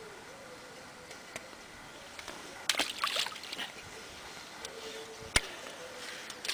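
Brief splashing and sloshing of lake water at the shore's edge about three seconds in, as hands work at the water's surface. A single sharp click follows about two seconds later.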